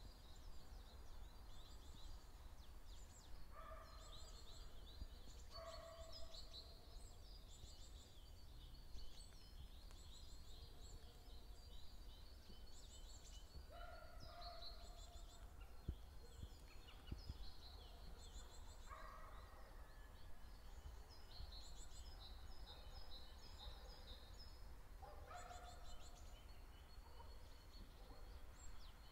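Faint wild birdsong: many small birds chirping and twittering high up, with a lower, fuller bird call repeated every few seconds, over a steady low rumble.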